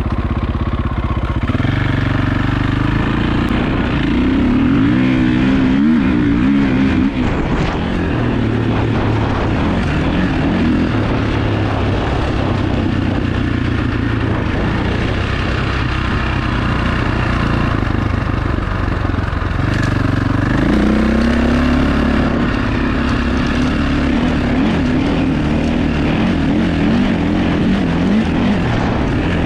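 KTM 525 EXC dirt bike's four-stroke single-cylinder engine running under load on the trail, rising in pitch as it accelerates a few seconds in and again about two-thirds of the way through, easing off in between.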